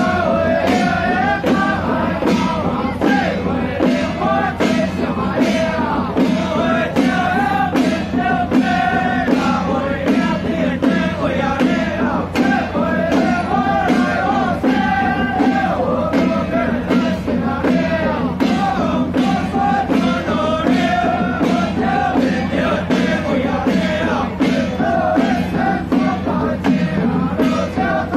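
Loud temple-procession music: a wavering lead melody over a steady, dense beat of clashing cymbals and gongs.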